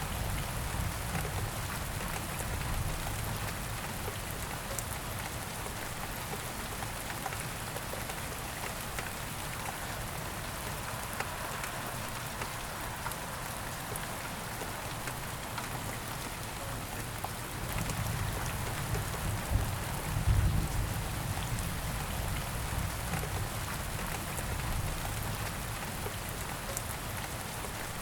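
Steady rain falling, an even hiss of many drops with fine individual patters. It swells louder and deeper for a few seconds about two-thirds of the way through.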